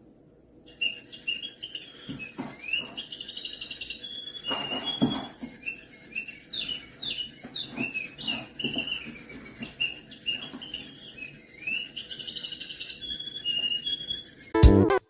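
Chirping from a battery-powered toy bird: short rising tweets repeated over and over, with a few thumps as a cat pounces and bats at it. Music cuts in just before the end.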